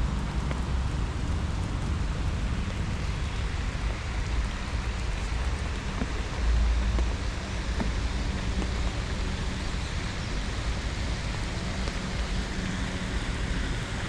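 Steady rain falling, an even hiss with a few scattered drop ticks, over a low rumble that swells briefly about six and a half seconds in.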